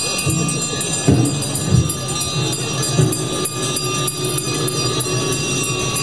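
Hundreds of bells ringing at once in a dense, continuous jangle, with crowd voices underneath.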